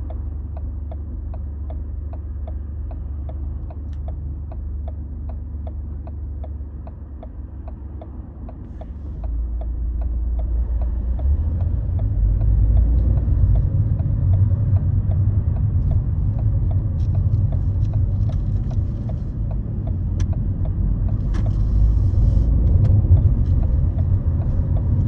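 Car cabin noise while driving: a steady engine and road rumble that grows louder about ten seconds in as the car pulls away and picks up speed. Through it runs a regular light ticking, about twice a second.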